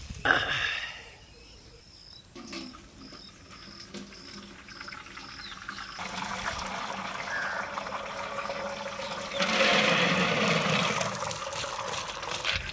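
A knock just at the start, then the thick cooking liquid of boiled horse gram pouring from a clay pot into a steel vessel, a stream that grows louder. About ten seconds in comes a heavier, louder splash as the soft boiled grams slide out into the liquid.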